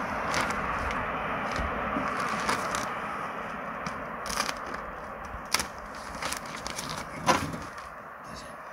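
Plastic roofing underlayment crinkling and crackling as it is handled and fitted around the base of a chimney, with several sharp clicks, the loudest near the end.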